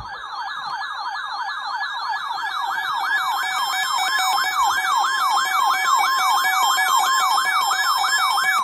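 Electronic warbling siren alert tone, sweeping rapidly up and down about three to four times a second and growing louder over the first few seconds, with a steady tone joining under it in the second half. It signals an incoming emergency alert, here a new snow squall warning.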